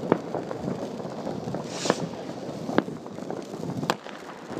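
Distant New Year fireworks: four sharp cracks about a second apart, the second led in by a short hiss, over a steady background of far-off crackling bangs.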